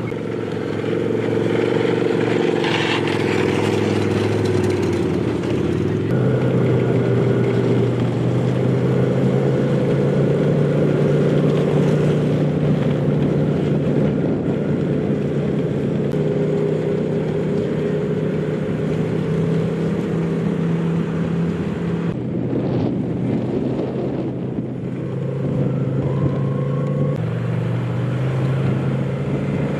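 Snowmobile engines running steadily, their pitch shifting abruptly a few times.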